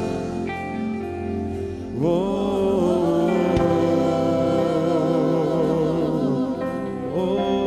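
Live gospel worship music: a singer holds a long note with vibrato over sustained band chords, with a new sung phrase starting near the end.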